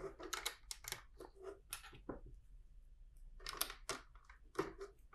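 LEGO plastic pieces clicking and clattering as they are handled and pressed together. Bursts of sharp clicks come in two clusters: one in the first two seconds and another about three and a half seconds in.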